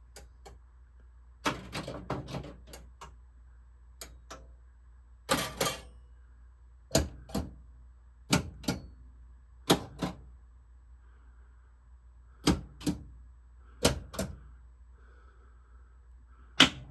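Gottlieb System 80 pinball machine solenoids firing one after another during the solenoid test. Each sharp clack mostly comes in a pair, about every second and a half, and the loudest crack comes near the end.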